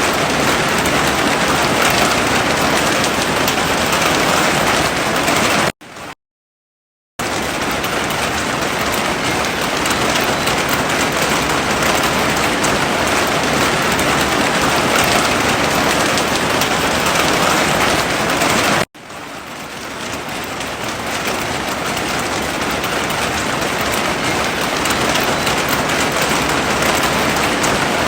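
Heavy rain falling in a steady, dense hiss. About six seconds in it cuts out to silence for a little over a second, and near two-thirds of the way through it drops suddenly, then swells back up over a few seconds.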